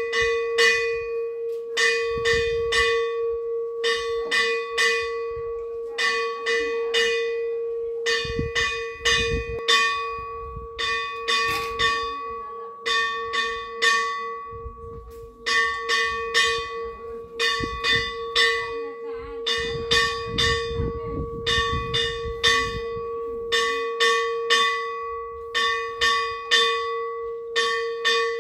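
Brass puja hand bell (ghanta) rung continuously with quick, uneven strokes that come in clusters. A clear ringing tone is held between the strikes. It accompanies the incense (dhoop) offering to the deities.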